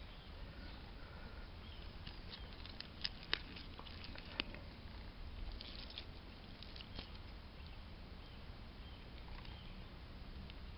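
A bare hand scraping and pulling lumps of moist clay out of an earth bank, faint and rustly, with a few sharp clicks between about three and four and a half seconds in.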